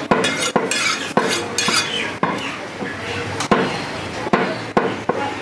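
A large butcher's knife chopping beef on a thick wooden chopping block: sharp chops about every half second, with a short pause a little past the middle.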